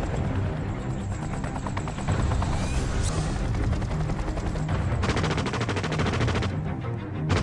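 Rapid automatic gunfire, shot after shot in quick succession, over low film-score music.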